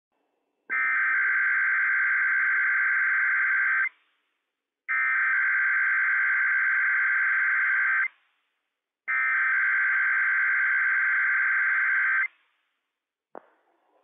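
NOAA Weather Radio Emergency Alert System SAME header tones: three identical bursts of harsh, buzzing digital data, each about three seconds long and about a second apart. They open a required weekly test broadcast. A brief click follows near the end.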